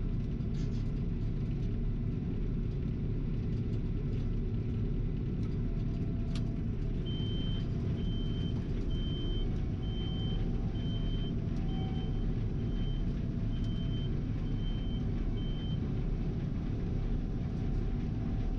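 Gleaner R72 combine running with a steady low rumble. From about seven seconds in, a high electronic warning beeper sounds about ten times, roughly once a second, then stops.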